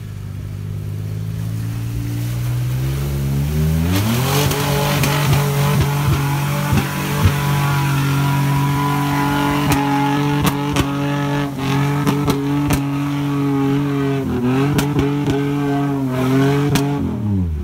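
Jeep Wrangler's engine revving up over about four seconds and held at high revs as its tyres spin through deep mud. The revs dip briefly and climb again, then fall away at the very end, with scattered sharp knocks throughout.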